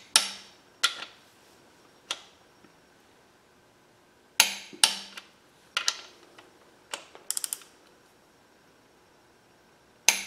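Click-type torque wrench tightening small-block Chevy 350 connecting rod cap bolts to their final 45 ft-lb, giving sharp metallic clicks as the bolts reach torque. The clicks come singly and in pairs spread through, with a quick run of four about seven and a half seconds in.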